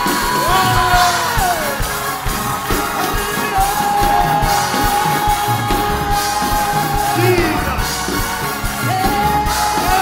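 Music with a steady beat and long held notes that slide in pitch, with singing.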